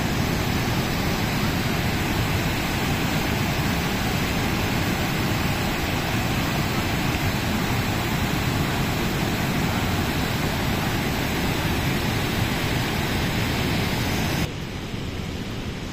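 Loud, steady rush of muddy floodwater pouring over the rocks of a swollen waterfall after heavy rain. It drops to a quieter rush a second or so before the end.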